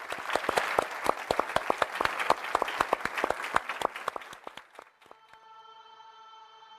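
Studio audience applauding, a dense patter of hand claps that stops suddenly about five seconds in. Faint, steady music tones begin near the end.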